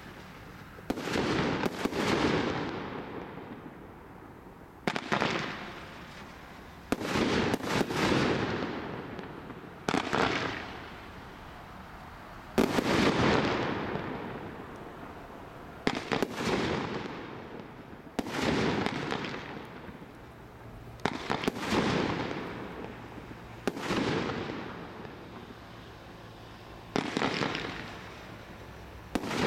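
A 33-shot fan barrage firework cake firing shot after shot, one every second or two and sometimes two close together. Each shot is a sharp report followed by a sound that fades away over a second or two.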